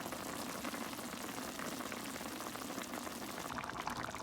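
A pot of chicken bubbling and crackling at a steady simmer as its sauce cooks down.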